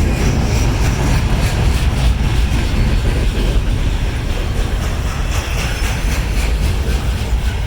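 Diesel-hauled freight train passing close by: a steady low rumble with the clatter of wheels over the rails.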